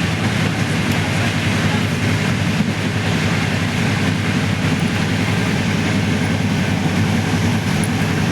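Passenger train running, heard from inside the coach: a steady low rumble and rattle of the carriage on the rails.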